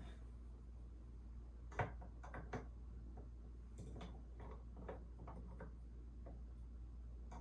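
Small sharp clicks and taps of hard statue parts and accessories being handled and fitted, scattered irregularly, with the two loudest near two seconds in, over a low steady hum.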